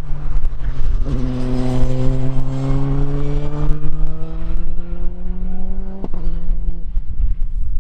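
Praga R1T race car engine under full throttle, its revs climbing slowly and steadily for about five seconds. About six seconds in, a gear change with a sharp click drops the revs.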